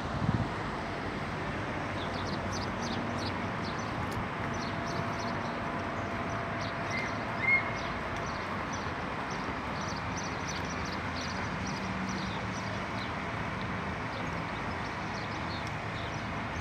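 Steady outdoor background noise with faint, quick high chirps of small birds scattered through it, and one short louder chirp about halfway through.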